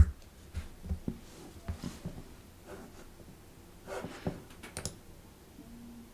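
Computer mouse clicking: a sharp click at the start, then a few scattered faint clicks and soft knocks over quiet room noise.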